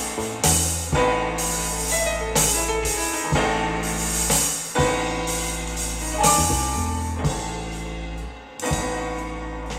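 Instrumental pop music with a deep sustained bass, keyboard notes and sharp drum hits, played back through a Sony SRS-XB40 portable Bluetooth speaker.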